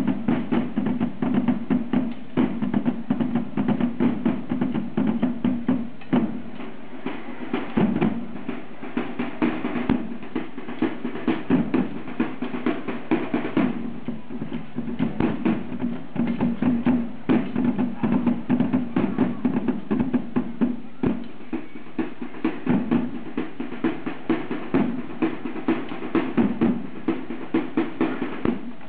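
Parade drums of a historical pageant, played in a fast, continuous rhythm of strokes and rolls.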